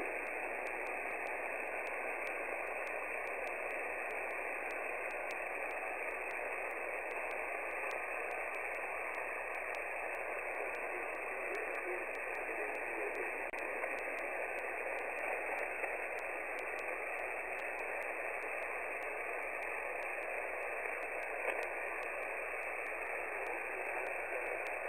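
Steady hiss of band noise from a shortwave receiver tuned to the 20-metre amateur band at 14.325 MHz, single-sideband, with no station transmitting. The hiss is thin and narrow, like radio voice audio.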